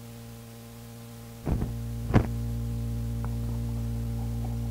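Steady mains hum on an old reel-to-reel tape recording, with two clicks about a second and a half and two seconds in, where the recording stops and restarts between segments. After the clicks the hum is louder.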